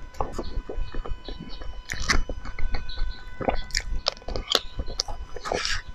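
Close-miked chewing of cake: irregular wet mouth clicks and smacks as soft cake is bitten and chewed.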